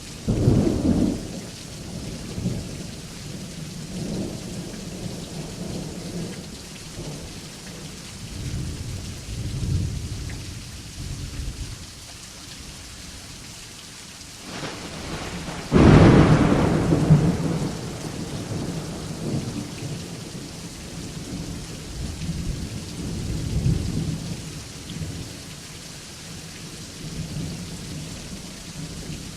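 Steady rain with thunder: a sharp clap about half a second in, low rumbling on and off, and a loud crack about halfway through that rolls away into a long rumble.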